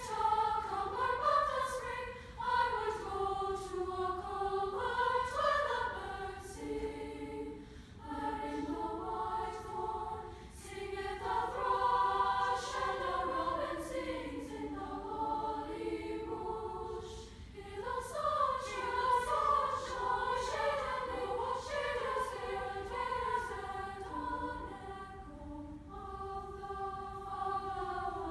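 Women's choir singing in several parts, high voices moving together in long phrases with brief pauses between them.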